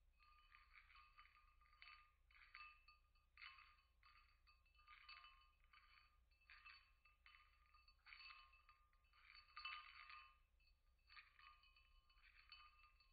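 Faint tinkling, chime-like ringing in short repeated bursts about a second apart.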